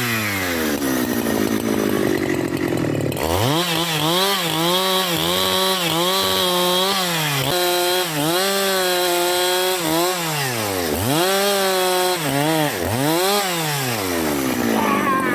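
Husqvarna 372XP two-stroke chainsaw revving hard over and over. It is held near full throttle for a few seconds at a time and falls back toward idle in between, then settles low near the end.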